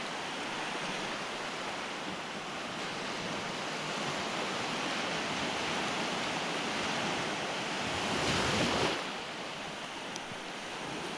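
Sea surf washing up on a shallow beach: a steady hiss of small breaking waves, with one wave coming in louder about eight seconds in.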